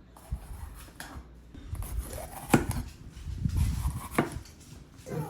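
Kitchen handling noises: a few separate sharp knocks and clinks of dishes and utensils being moved and set down, the loudest about two and a half seconds in.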